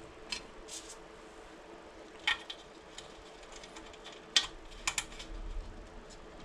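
A few light, irregular metallic clicks and taps as steel spokes knock against the hub flange and carbon rim while a bicycle wheel is laced by hand.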